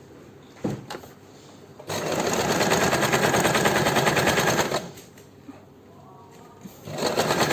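Usha Janome Dream Stitch electric sewing machine stitching a folded cloth edge, in two runs. It gives a couple of light clicks about a second in, runs for about three seconds, stops, and starts again near the end.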